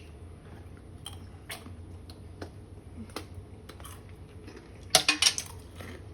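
Scattered light clinks and taps of tableware, with a brief cluster of louder clatter about five seconds in.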